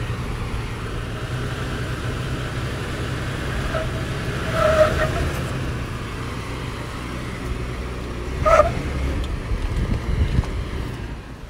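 Toyota 4Runner's 4.0-litre V6 running at low speed as the truck crawls over rock ledges. Two short higher-pitched squeaks come about four seconds apart, near the middle and later on.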